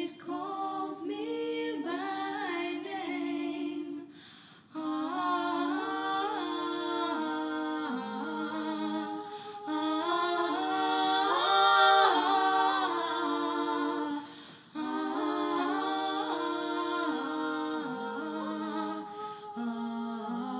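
Slow, wordless vocal music: several layered voices humming and singing long held notes that glide from one pitch to the next, with brief lulls about four seconds in and again about fourteen seconds in.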